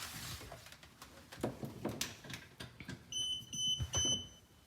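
A battery-powered electronic unit of an under-sink reverse osmosis system beeps three times in quick succession, short high tones, after light handling knocks.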